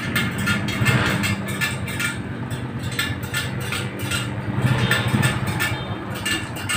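Low, steady rumble of motor vehicle engines, with frequent small clicks and taps on top.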